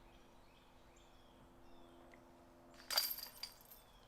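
A disc golf putt hitting the chains of a metal basket about three seconds in: one sharp metallic clash and a brief jingle of chains, ringing for about half a second. Faint birdsong chirps can be heard before it.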